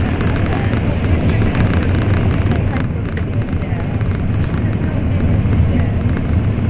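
Passenger-cabin running noise of an N700 series Shinkansen: a steady low rumble with an even hiss over it.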